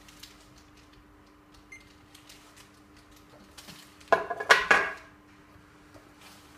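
A faint steady hum with scattered small ticks, broken just after four seconds in by a loud burst of clinking and clattering that lasts under a second.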